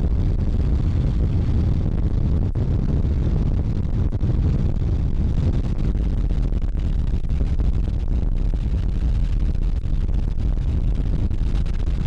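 Laver harvesting boat's engine and harvesting gear running steadily as the boat works along a seaweed net: a low, constant rumble.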